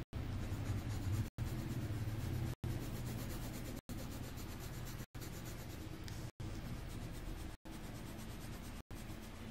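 Pen scratching on paper as a line drawing is traced, with a steady low hum under it; the sound drops out for an instant about every second and a quarter.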